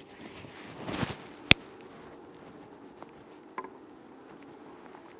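Soft handling noises and light taps as a gloved hand shakes honeybees off a queen cage over the hive's wooden top bars. One sharp click about a second and a half in, and a couple of lighter taps later.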